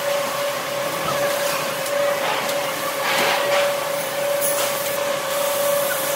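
Steady hum of factory machinery with a constant mid-pitched whine, and a brief rustle of handling about three seconds in.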